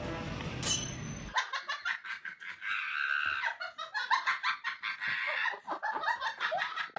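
Rapid high-pitched laughter, starting suddenly about a second in and going on in quick repeated peals.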